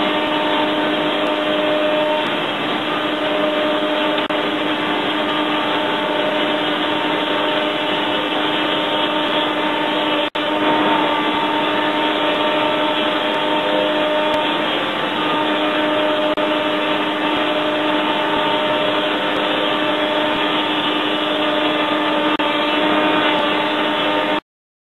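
Two spindle shapers with power feeders running together, a steady loud machine drone with several steady hum tones. It drops out for an instant about ten seconds in, then stops abruptly near the end.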